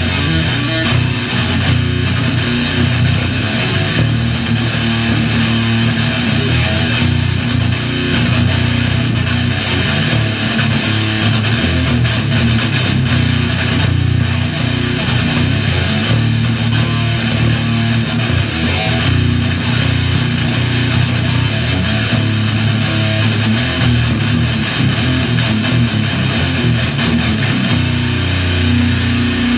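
Electric guitar and electric bass guitar playing a heavy metal song together.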